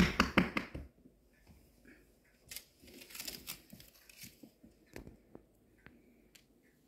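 Walking and camera-handling noise on a hardwood floor: a quick run of knocks and clicks in the first second, then scattered faint ticks and rustles.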